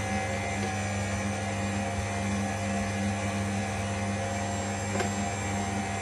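Cold press slow juicer's motor running with a steady hum, with a single short click about five seconds in.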